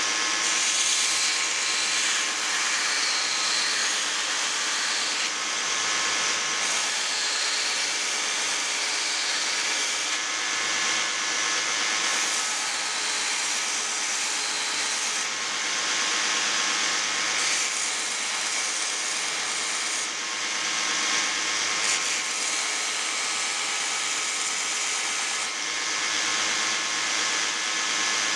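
Belt grinder running, with a block of hardwood pressed against its sanding belt: a steady hissing grind that swells and eases every few seconds as the wood is pushed on and turned.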